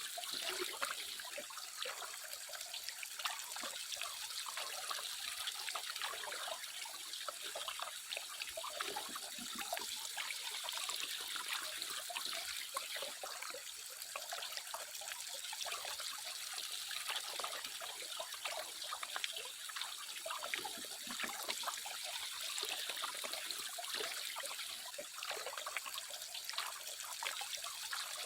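Water trickling and splashing steadily, full of small crackling splashes.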